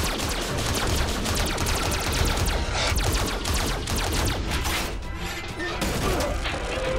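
Rapid gunfire from an armoured police mech suit's gun, a long stream of shots that thins out after about five seconds, over action music.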